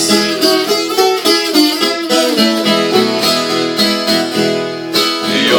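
Viola caipira, the Brazilian ten-string guitar, picking a quick melodic instrumental break with no singing.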